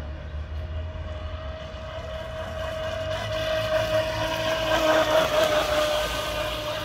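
Thunder Tiger Outlaw OBL radio-controlled speedboat's brushless motor whining at a steady pitch over the hiss of water spraying off the hull. It grows louder as the boat passes close about five seconds in, then fades.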